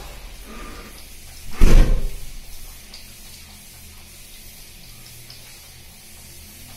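A single loud knock about one and a half seconds in, dying away within a second, then only the faint hush of a small tiled room.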